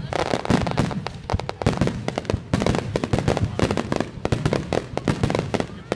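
A fireworks star mine barrage: a dense, rapid run of sharp bangs and crackling pops, several a second, with no pauses.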